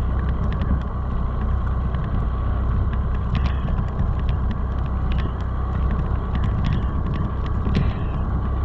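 Motorcycle on the move: the engine runs steadily with wind noise over the microphone, and scattered sharp ticks throughout.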